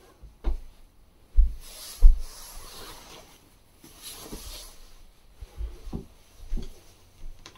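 Footsteps and soft thumps of someone moving about a small room, with two short spells of rustling. The thumps are irregular, the loudest about two seconds in.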